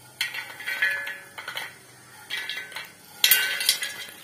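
Popcorn being scraped out of a non-stick frying pan with a metal utensil and tipped into a steel bowl: irregular ringing clinks and scrapes of metal on the pan and bowl, with the loudest clatter about three seconds in.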